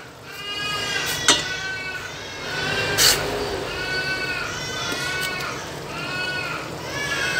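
An animal calling over and over, about six short calls that rise and fall in pitch. Two sharp metallic clinks, the louder one about three seconds in, come from a ladle striking the stainless-steel pot as the soup is stirred.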